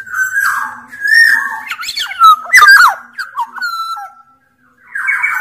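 Black-naped oriole (Sumbawa kepodang) singing vigorously: rough, harsh notes mixed with fluid whistled glides that swoop up and down. There is a brief pause about four seconds in before it starts again.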